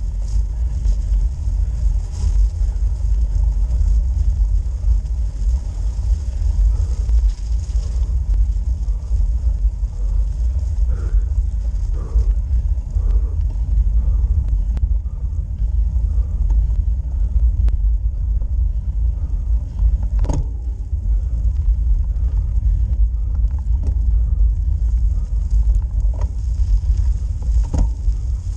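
Steady low rumble from a road bike rolling slowly uphill on a snow-dusted road, picked up by a camera mounted on the bike. A few sharp clicks stand out about two-thirds of the way through and near the end.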